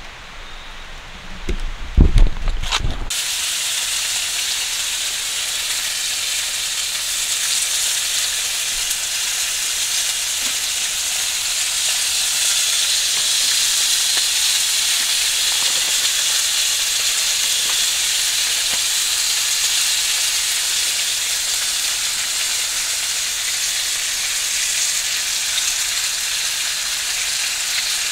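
Bacon sizzling in a cast iron skillet on a small wood-burning camp stove: a steady frying hiss that swells a little toward the middle. A few knocks come in the first three seconds, before the sizzling starts.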